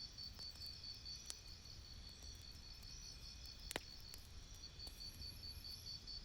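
Campfire crackling: a few sparse, sharp pops, the loudest about two-thirds of the way through, over a low rumble. A steady, rapidly pulsing high-pitched trill runs underneath.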